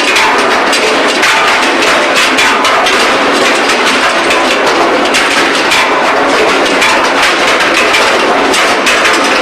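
Loud, continuous industrial clatter of forging-line machinery: dense rattling and knocking of metal. It cuts off suddenly at the end.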